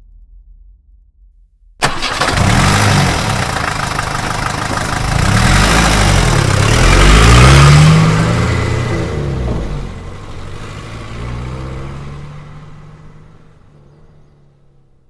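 School bus engine starting abruptly about two seconds in, then revving up with its pitch rising and falling several times as the bus pulls away, before fading out into the distance.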